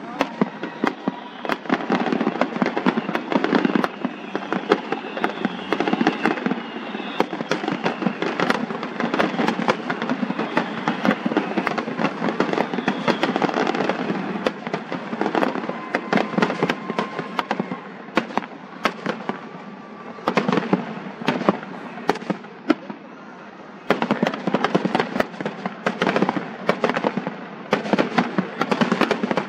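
Fireworks going off in rapid succession: a dense, continuous run of bangs and crackling, with a short lull about three-quarters of the way through.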